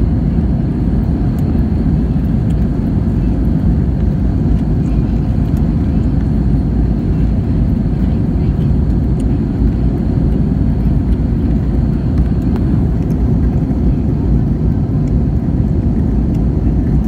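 Airliner cabin noise during the climb after takeoff: a loud, steady low rumble of engines and airflow, with a faint steady high whine.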